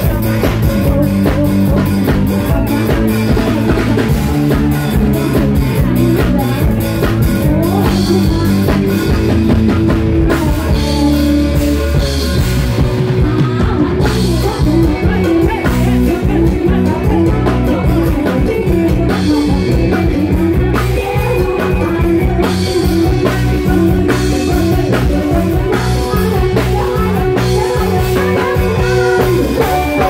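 Live band playing loud through the stage PA: electric guitar, bass guitar and drum kit, with a singer's vocals over them.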